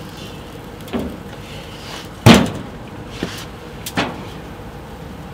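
Metal lid of a gas grill being shut with a loud clang about two seconds in, with a few lighter knocks of handling the grill before and after.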